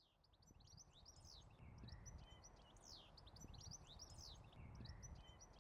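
Faint birdsong: quick high chirps and falling whistled notes, repeated in short phrases, over a low background rumble.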